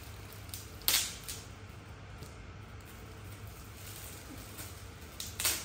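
Gift packaging being torn or rustled open: two short, sharp rustling bursts, about a second in and again near the end, over a low steady hum.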